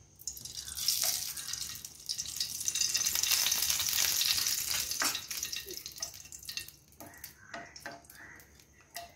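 Sunflower oil sizzling as it is poured into a hot non-stick frying pan, a hiss that builds over the first few seconds and dies away about halfway through. Then a few short clicks and knocks from a wooden spatula against the pan.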